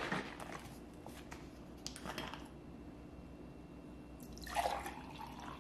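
Liquid poured from a bottle into a ribbed drinking glass, a short pour about four and a half seconds in. A few faint short handling sounds come before it.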